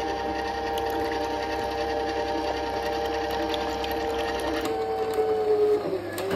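Electric vertical slow juicer's motor and auger running with a steady whine as it presses lemons. The sound shifts a little over two-thirds in, and the pitch sags briefly near the end.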